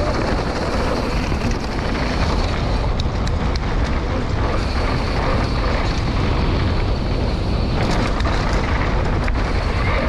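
Steady wind rush on an action camera's microphone as a downhill mountain bike runs fast over a dirt trail, with the tyres' rolling noise and a few sharp knocks from the bumps.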